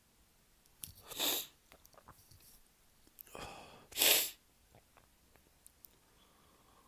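Two stifled sneezes from a man with a cold, one about a second in and a louder one about four seconds in, with small breaths and clicks between them.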